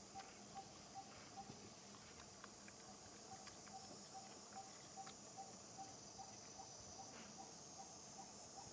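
Faint outdoor ambience: insects droning steadily at a high pitch, with a short single note repeated about two to three times a second that breaks off briefly about two seconds in, and a few soft clicks.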